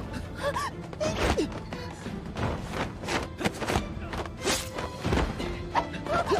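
Action-scene soundtrack: music playing under a rapid series of punch and body-blow hit effects, with a few short cries.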